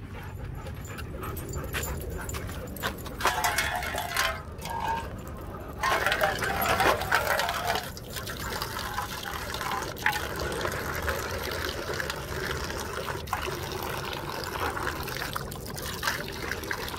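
Water pouring in a steady stream from a plastic jug into a metal bowl, splashing and filling. It is loudest in uneven surges between about three and eight seconds in.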